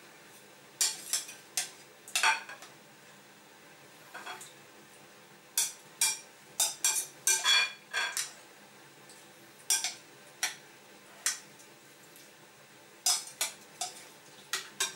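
Metal spoon clinking and scraping against a glass bowl and a ceramic plate in irregular clusters of sharp clinks, as marinated pork belly cubes are spooned out of the marinade onto the plate. The busiest run of clinks comes in the middle.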